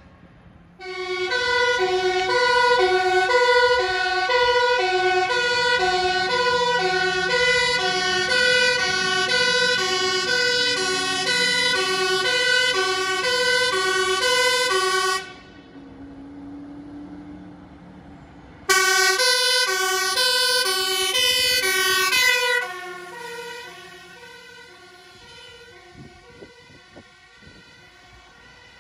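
Two-tone sirens of Dutch emergency vehicles on an urgent (P1) run, switching between a high and a low note in a steady rhythm. Loud from about a second in, they cut off abruptly around the middle, come back loud a few seconds later, then drop to a fainter siren as a vehicle moves away.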